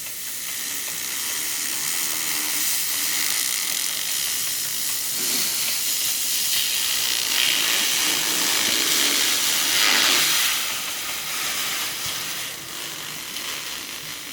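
Cooling fans of a freshly built desktop PC running just after first power-on, an airy hiss that swells to its loudest about ten seconds in and then eases off.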